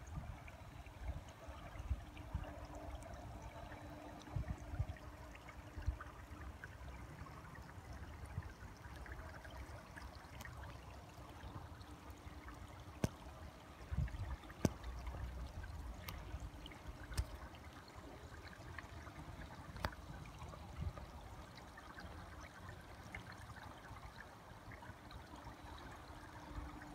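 Shallow creek trickling over rocks, faint, with gusts of wind on the microphone and a few sharp clicks partway through.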